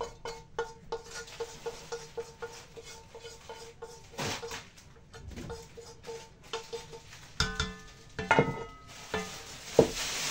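Wooden spoon scraping fried lardons and onions out of a non-stick frying pan into an enamelled cast-iron casserole. A few ringing clanks of the pan against the pot come about seven and a half to eight and a half seconds in, then one sharp knock near the end.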